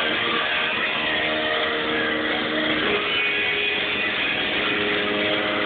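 Heavily distorted electric guitar on a Stratocaster-style instrument, held notes droning and ringing out over a harsh, noisy wash, with the pitches shifting about three seconds in.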